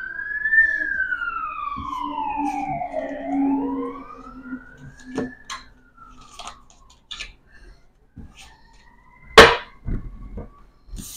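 Emergency-vehicle siren wailing in slow rising and falling sweeps, fading out about halfway through. Playing cards are handled with light clicks, and a single sharp slap of a card on the table comes near the end and is the loudest sound.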